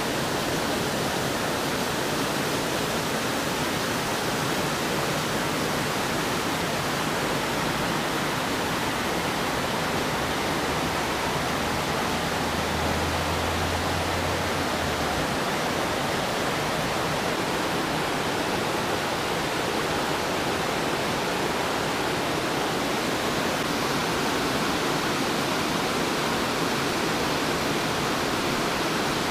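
River water rushing and cascading over rocks in a steady, even rush, with a faint low hum for a few seconds in the middle.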